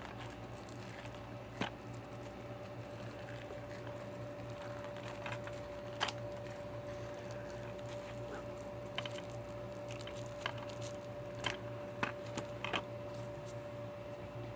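Scattered light clicks and taps of a DVD case and its cardboard slipcover being handled and slid apart, over a steady hum.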